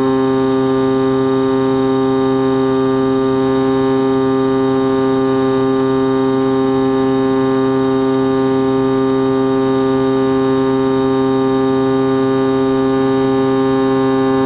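Skywalker X-8 flying wing's motor and pusher propeller running at a steady cruise throttle, a constant buzzing drone heard close up through the onboard camera. The pitch and level do not change.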